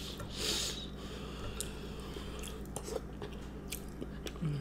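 Close-miked chewing and biting of food, with small wet clicks and crunches and a short louder burst of crackle about half a second in, over a steady low hum.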